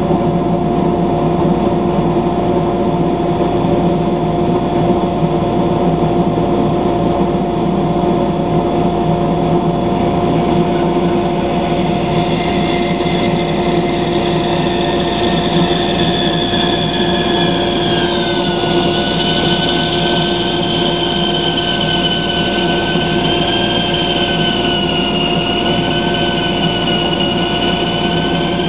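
Dust collector and bandsaw running with a loud, steady hum. About twelve seconds in, a high whine that wavers in pitch joins it as the blade resaws a bloodwood board into thin strips.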